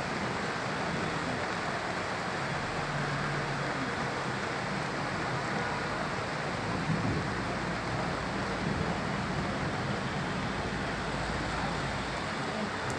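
Heavy rain falling steadily as an even hiss, with a low rumble underneath for most of the middle.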